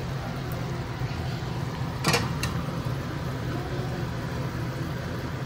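Tamarind curry boiling hard in an aluminium pan, over a steady low hum. Two sharp clinks come about two seconds in, the second shortly after the first.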